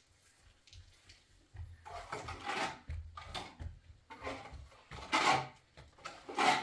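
Wet white plaster being rubbed and smeared by hand across a rough mud wall: a series of rubbing, scraping strokes about a second apart, the last two loudest.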